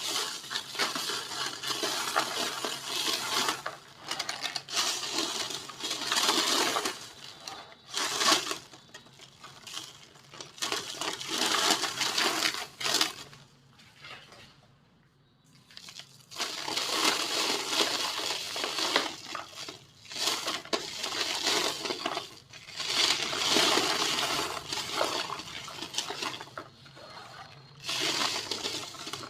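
Small dry white-cement bowls being crushed and crumbled, giving crisp crackling and gritty crunching in repeated bursts, with a pause of about two seconds around the middle.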